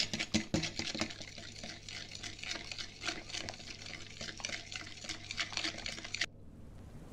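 Wet pancake batter being stirred by hand with a metal mixer beater in a glass bowl: a run of soft wet clicks and scraping that stops suddenly near the end.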